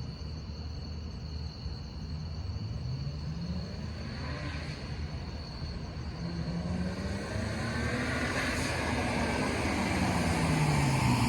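A BMW 335i's N54 twin-turbo straight-six accelerating, its engine note rising twice as if through gears and then falling near the end, growing steadily louder. Crickets chirp steadily throughout.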